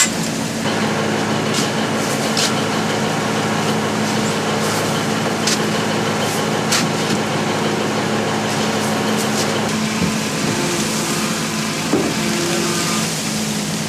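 A fishing boat's engine running steadily, with a few sharp clicks and knocks scattered through.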